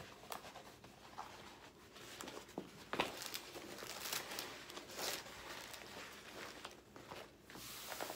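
A diamond painting canvas and its plastic protective film crinkling and rustling as it is unfolded and smoothed flat by hand, with a sharp crackle about three seconds in.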